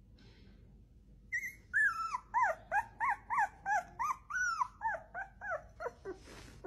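A young puppy whimpering and squealing in a quick run of short, high-pitched cries, about three a second, starting a little over a second in. A brief rustle comes near the end.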